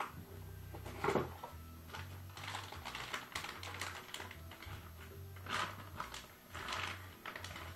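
Cardboard box and plastic packaging being handled: irregular crackling and clicking, loudest about a second in and twice near the end, over background music with a pulsing bass line.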